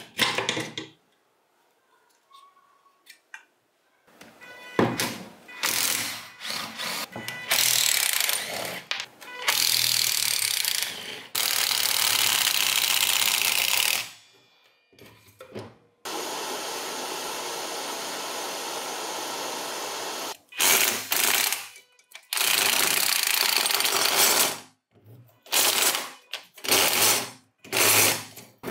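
A small handheld power tool started and stopped repeatedly in short bursts, with a few longer steady runs, the longest lasting about three seconds.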